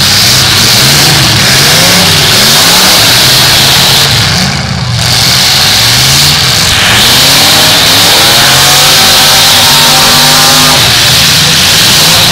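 Demolition derby cars' engines revving hard, the pitch climbing and dropping again and again as the cars push and spin in the arena, over a heavy hiss. The sound is loud, with a brief dip about four seconds in.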